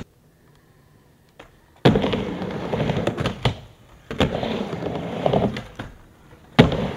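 A skateboard's wheels rolling on a mini ramp in two runs, each about two seconds long, with sharp clacks of the board and trucks striking the coping. The runs follow about two seconds of near silence.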